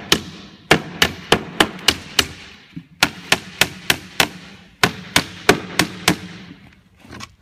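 Hammer driving a nail into the edge of a polypropylene plastic concrete-formwork panel. Sharp strikes at about three a second come in three runs, with short pauses between them about two and a half and four and a half seconds in.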